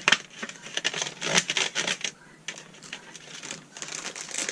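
Plastic wrappers and parts of a candy kit being handled: crinkling and light clicks, busiest in the first two seconds and sparser after.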